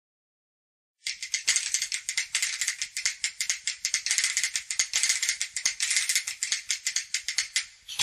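About a second of silence, then music begins with a shaker rattling alone in a quick, busy rhythm.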